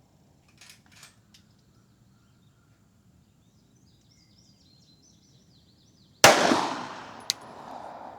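A single 9mm pistol shot from a Glock 34 about six seconds in, sharp and loud with a long echo trailing off. Before it there are only a couple of faint clicks.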